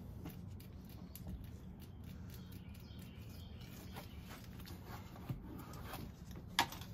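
Quiet outdoor background with faint bird chirps and a few small clicks, one sharper click near the end.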